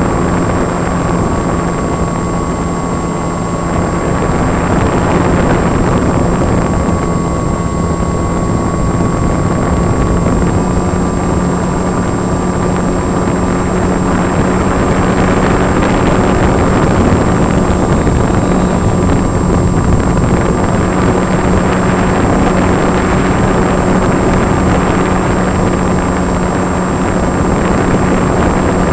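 Electric motor and propeller of a radio-controlled EPP foam FPV plane in flight, heard from the camera mounted on it: a steady low hum and a higher whine over a constant rush of noise. The whine shifts slightly in pitch about ten seconds in.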